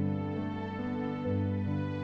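Slow, gentle instrumental music of sustained chords, the bass and harmony shifting to a new note about every second.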